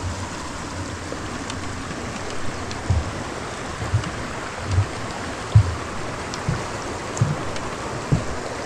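Stream water rushing steadily, with a run of short low thumps about once a second through the middle and latter part.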